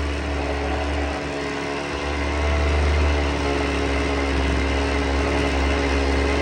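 Husqvarna 50 single-cylinder two-stroke chainsaw engine running steadily at a constant speed. It is an old saw with low compression.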